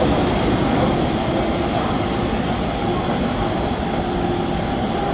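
MTR M-Train at an underground platform behind platform screen doors: a steady, unbroken rumble and hum from the train, with faint held tones over it.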